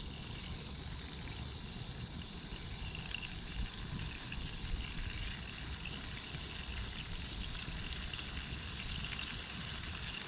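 Formed meat sizzling and hissing over a hot campfire, with faint crackles and a low rumble underneath.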